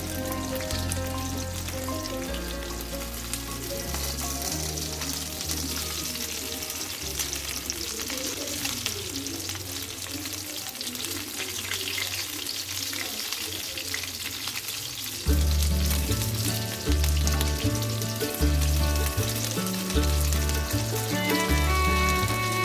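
Food frying and sizzling in a pan, with stirring, under background music whose heavy bass beat comes in about two-thirds of the way through.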